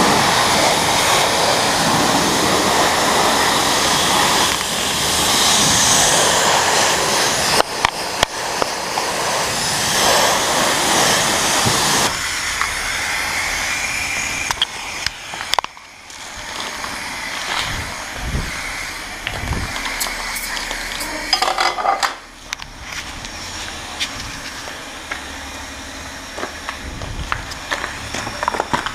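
High-pressure car-wash wand spraying water in a loud, steady hiss, broken briefly by clicks about eight seconds in. The spray stops at about twelve seconds, leaving a quieter background with scattered clicks and a few low knocks.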